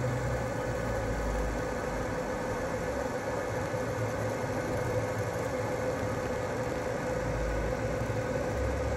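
20 W TBK 958A laser engraver running steadily, a constant hum and hiss with a faint steady whine. It is on an engraving pass, burning paint off a stainless steel tumbler down to the bare steel.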